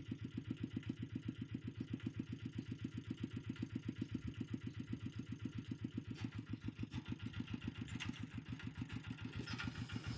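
Small engine of a walk-behind tractor running steadily, its exhaust pulsing evenly at about seven beats a second.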